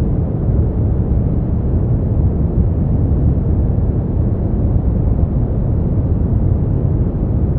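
Smoothed brown noise: a steady, deep noise with most of its energy in the low end, thinning out toward the treble, with no changes or events.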